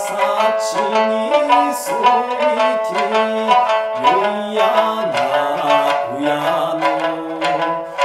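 Okinawan sanshin, tuned A–D–A, plucked in a quick kachāshī rhythm while a man sings a held, sliding folk melody over it.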